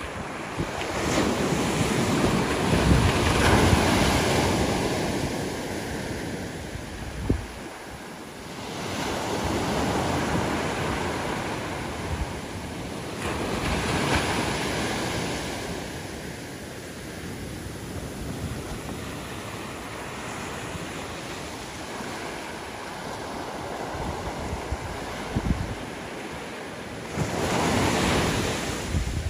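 Small ocean waves breaking and washing up a sandy beach, the surf swelling and fading every few seconds, with the loudest rushes near the start and near the end.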